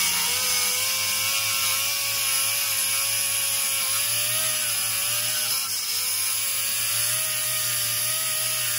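Air die grinder spinning a rubber surface-prep wheel against an aluminum oil pan flange, stripping old silicone sealant: a steady high whine over air hiss, its pitch wavering slightly and dipping briefly just past the middle.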